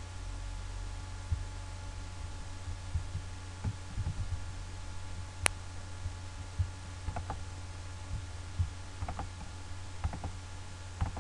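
Scattered clicks of a computer mouse and keyboard over a steady low electrical hum, with one sharper, louder click about five and a half seconds in.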